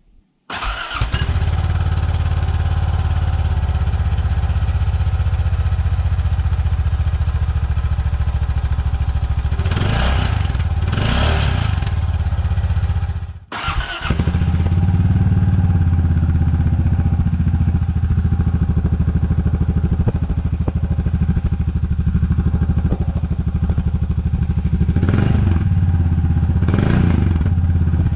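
Honda Pioneer 700's single-cylinder engine idling steadily through its exhaust, revved briefly twice. After a sudden break it idles again, now with a free-flowing aluminum exhaust tip fitted, and is revved briefly twice more.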